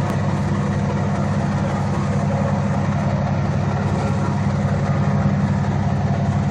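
A large engine running steadily, a loud, even low drone that does not change in pitch.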